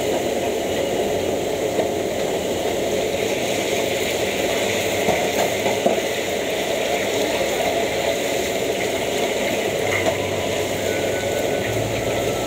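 Food deep-frying in a large wok of hot oil, a steady bubbling sizzle over the constant rush of a gas wok burner, with a few light clicks of a metal spatula against the pan.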